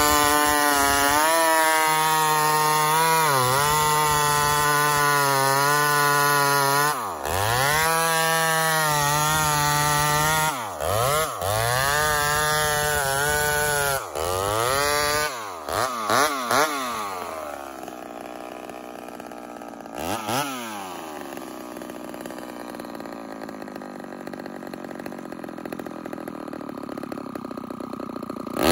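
Ported Homelite two-stroke chainsaw with a simple straight-out muffler, cutting through a log at full throttle, the revs sagging and recovering under load. About fifteen seconds in the throttle is eased and blipped a few times. The saw then settles to a steady idle, with one short rev a few seconds later.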